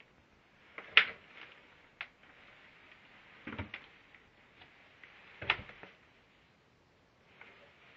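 Slow, irregular footsteps and knocks, four or five in all, with the sharpest knock about a second in.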